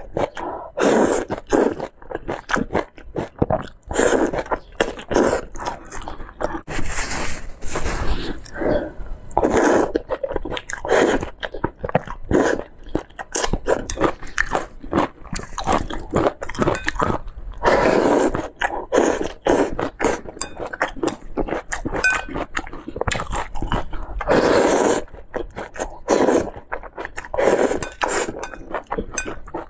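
Close-miked eating of thick noodles: repeated wet slurps and chewing in irregular bursts, with chopsticks now and then scraping the ceramic bowl.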